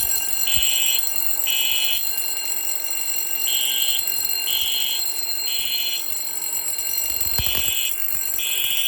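Fire alarm sounding in a test: loud electronic beeps, three half-second pulses followed by a longer pause, repeating, the temporal-three evacuation pattern, over a steady high-pitched tone.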